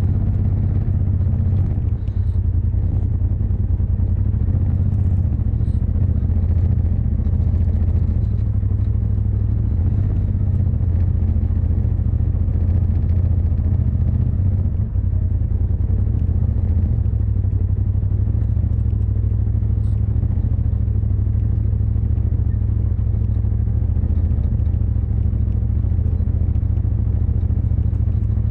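Polaris RZR Turbo S side-by-side's turbocharged twin-cylinder engine running steadily as it crawls along a rough dirt trail, a continuous low drone with a few faint rattles.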